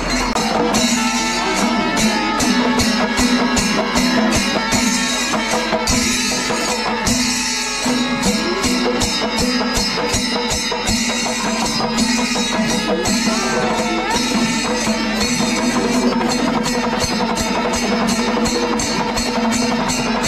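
Kerala temple-festival percussion ensemble playing: chenda drums with ilathalam cymbals clashing in a fast, steady rhythm over a sustained held note.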